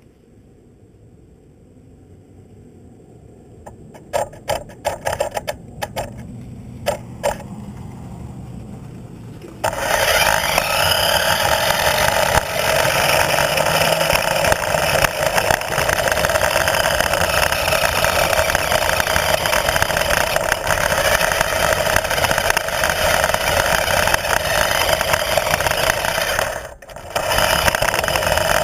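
A few sharp clicks and knocks, then about ten seconds in a loud engine-driven vehicle starts running close up and keeps going steadily, dipping briefly near the end.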